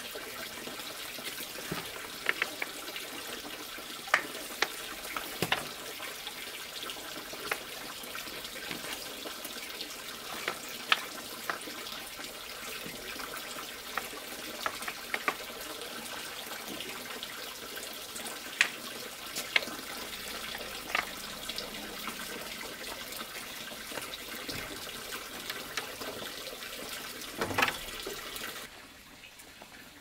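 Broom handles knocking and clacking against each other and the floor as a pile of handmade grass brooms is gathered and sorted, in irregular sharp knocks with a louder cluster near the end, over a steady rushing background.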